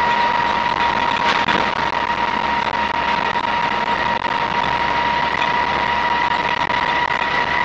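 Land Rover Series 3 109 breakdown truck driving at a steady speed, heard from inside the cab: engine and drivetrain running evenly with road noise and a steady high whine.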